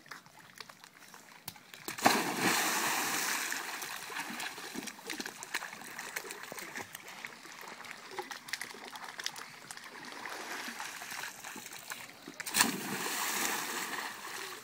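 Two people jumping into a swimming pool: a big splash about two seconds in and another near the end, each followed by a couple of seconds of water washing and slapping.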